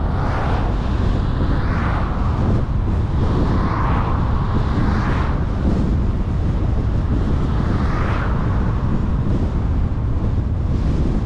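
Car driving along a road: a steady low rumble of tyres and engine, with wind rushing over the microphone and several swells of louder rushing noise that come and go every couple of seconds.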